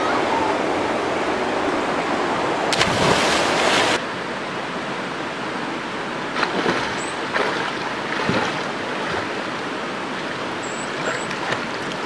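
Shallow river water rushing steadily over stones. A louder burst of noise comes about three seconds in and lasts about a second, and a few faint splashes follow later.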